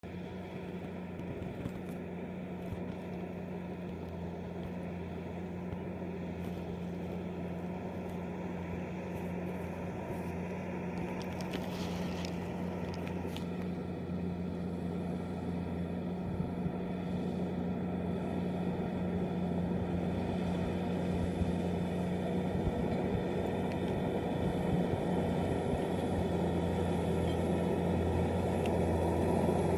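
Case IH Puma 165 tractor's six-cylinder diesel engine running steadily under load while ploughing, a constant hum that grows gradually louder.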